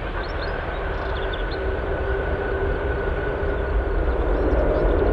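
Airbus A380's four Rolls-Royce Trent 900 jet engines during the landing rollout just after touchdown: a steady rushing noise with faint steady whine tones, growing louder toward the end.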